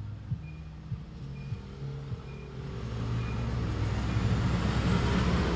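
Bass-heavy audio played through a power amplifier and speaker fed by a low-pass filter (subwoofer preamp): a deep, regular thumping beat with a faint short high blip about twice a second. About three seconds in, the sound grows louder and fuller.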